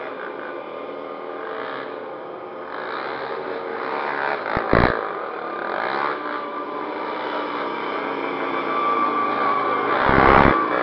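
Cruiser motorcycle engine running and revving, growing louder and rising in pitch as it comes closer. Two brief low rumbles break in, about five seconds in and near the end.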